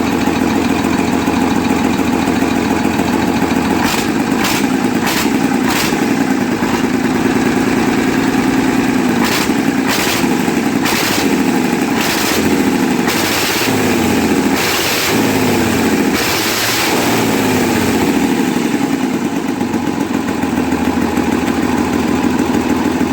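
Scania 111's 11-litre six-cylinder diesel engine running with its timing gear train uncovered: idling, then revved up and down several times in the middle. The owner says it runs but is still out of injection timing.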